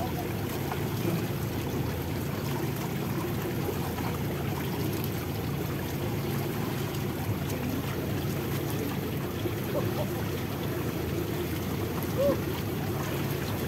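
Sea water sloshing and lapping between folds of a hauled fishing net, over a steady low hum.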